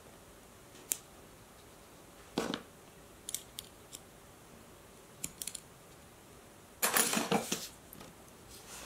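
Scattered light clicks and taps of small metal hardware being handled as Chicago screws are fitted into a BioThane strip with a screwdriver, with a denser run of clinking and handling about seven seconds in.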